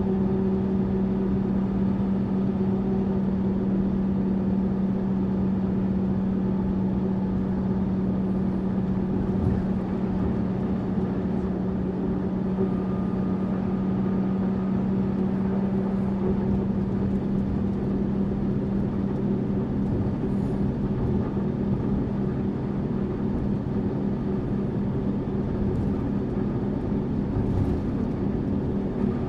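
Tourist bus running at a steady pace: an even engine drone with a constant low hum, under road and cabin noise.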